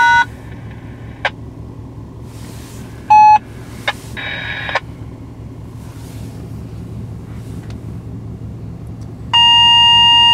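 Short electronic beeps: a brief one at the start, another about three seconds in, and a steady beep of about a second near the end. Under them is the low, steady rumble of an idling car heard from inside the cabin.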